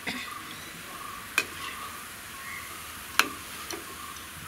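Banana bondas deep-frying in hot oil with a steady sizzle. The bondas are golden brown and being lifted out with a steel ladle, which gives two sharp metal clinks, about a second and a half in and again near three seconds.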